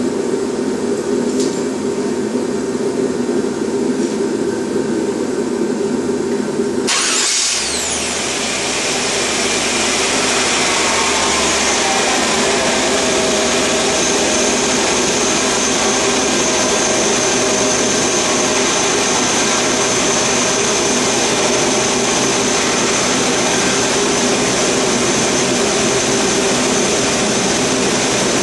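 Steady machinery running, which changes abruptly about seven seconds in to a louder, even roar that then holds steady.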